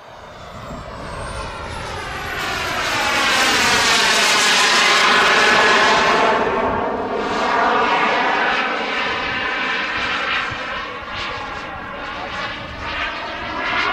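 Boomerang RC jet's small gas turbine flying past: a thin high whine that rises in pitch over the first few seconds, over a rushing jet noise that swells to its loudest about four to six seconds in, then eases off a little.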